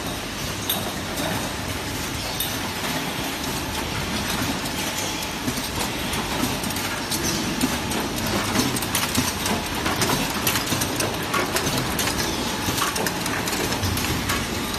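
Oil filter assembly line running: a steady, dense clatter of automated machines and conveyors, with many small clicks and knocks that grow busier about halfway through.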